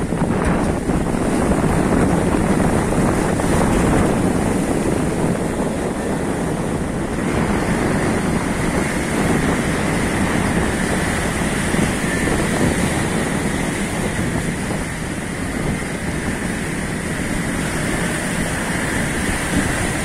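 Strong wind buffeting the microphone over surf breaking and washing against a rock breakwater, a steady dense rush throughout.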